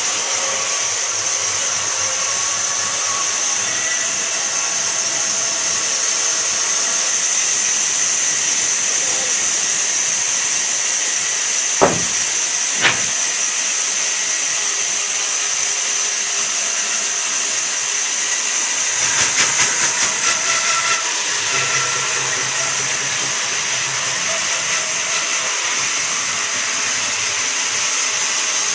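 Band saw running and cutting through a thick block of wood: a steady high hiss. Two sharp knocks come about twelve and thirteen seconds in, and a brief rattle about nineteen seconds in.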